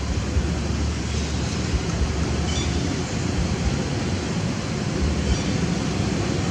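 Wind buffeting the microphone: a steady, uneven rumbling noise with no clear calls over it. A faint, short high sound comes about two and a half seconds in.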